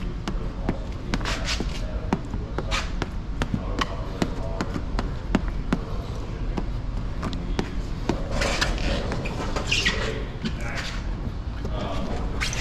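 Plastic squeegee scraping in short strokes across wet paint protection film on a car bumper, with scattered small clicks and taps, over a steady low hum.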